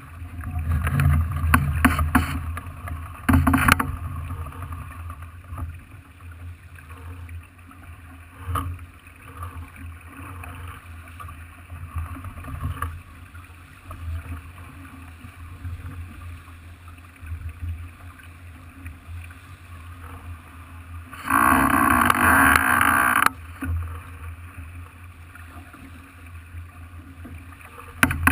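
Farr 40 racing yacht under way at sea, with a steady low rumble of the boat moving through the water. The noise is louder for the first few seconds, and a loud burst lasting about two seconds comes about twenty seconds in.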